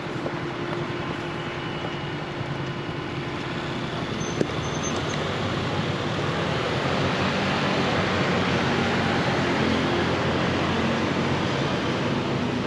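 Motor scooter on the move: a steady engine hum under a rush of wind noise, growing louder from about four seconds in.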